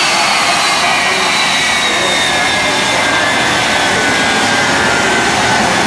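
Jet engines of the Shockwave jet truck running: a loud, steady rush with a high turbine whine that slowly falls in pitch.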